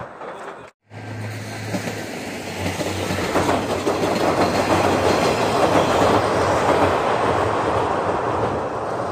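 Three-car diesel railcar set (JR Shikoku KiHa 185 series with a KiHa 32) passing over a steel girder bridge: a steady low engine hum under the rumble of wheels on the rails, building to its loudest about six seconds in and then easing off. The sound drops out for a moment just before a second in.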